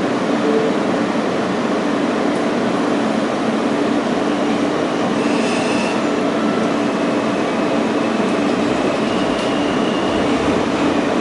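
New York City subway train heard from inside the moving car: the steady rumble and rattle of its wheels on the rails and its running gear, with a brief high squeal of the wheels about five seconds in and a fainter high tone near the end.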